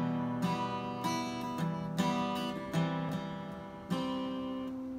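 Cutaway acoustic guitar strummed in a slow chord pattern, a fresh stroke about every second with each chord left ringing: the instrumental opening of a song.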